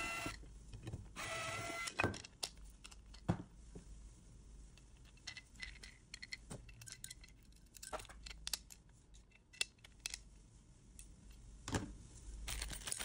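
Screwdriver undoing the screws of a camera junction box cover, with two short squeaky tones in the first two seconds as the screws turn. Then scattered light clicks and knocks as the metal cover is lifted off and handled.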